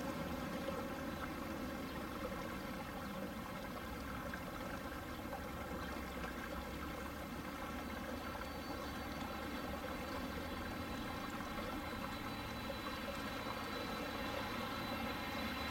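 Boeing 767-300ER's twin GE CF6-80C2 turbofans running at taxi power: a steady jet whine over a rushing hiss. A high whistle comes in about twelve seconds in, and the sound grows a little louder toward the end as the airliner turns to face the listener.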